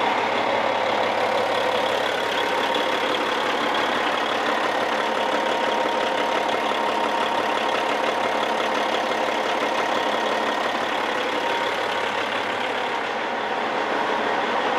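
Caterpillar 3406E inline-six diesel engine in a Freightliner truck idling steadily, freshly started after an oil change.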